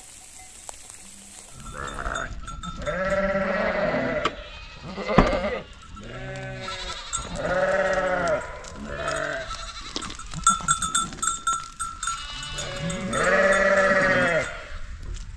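A flock of sheep and goats bleating, several long calls one after another starting about a second and a half in, with a livestock bell clinking among them near the middle.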